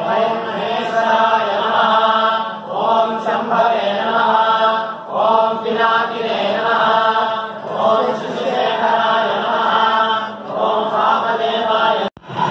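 A group of priests chanting the names of Shiva together in Sanskrit, in short repeated phrases with brief breaths between them. The chant cuts off abruptly near the end.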